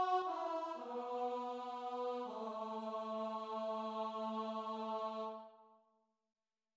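The closing phrase of a Czech folk-song melody in a sustained, choir-like vocal sound with steady held notes. It steps down through three notes and ends on a long low final note that fades out about five and a half seconds in.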